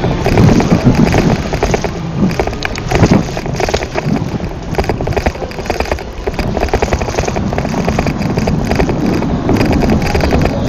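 Bicycle being ridden over city pavement: a steady clatter of small rattles and clicks from the bike and its camera mount, with some wind on the microphone.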